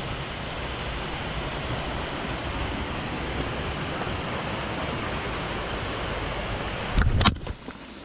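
Steady rush of a small waterfall cascading over rocks into a stream. Near the end come a few loud knocks, and then the water sound turns quieter and muffled.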